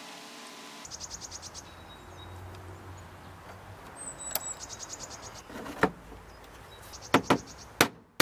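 Parts being refitted by hand in a car's engine bay during reassembly: two short runs of rapid clicking, then several sharp knocks as hoses and plastic covers go back into place.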